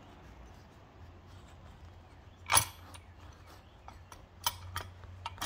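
Steel parts of a Jeep CJ7 parking brake assembly clicking as they are handled and fitted: one sharper metallic clack about two and a half seconds in, then a few small ticks near the end, over a faint steady low hum.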